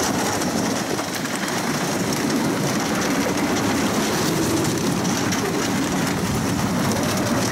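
Wooden roller coaster train, a Custom Coasters International (CCI) woodie, running at speed along its track, heard from the front seat: a loud, steady clatter and rumble of the wheels on the wooden track.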